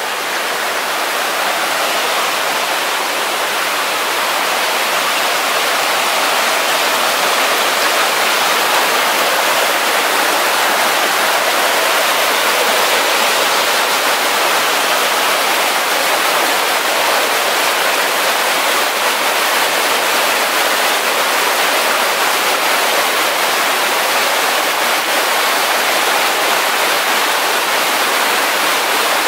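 Rushing water of a rainforest river, a loud, steady rush that swells slightly over the first few seconds and then holds even.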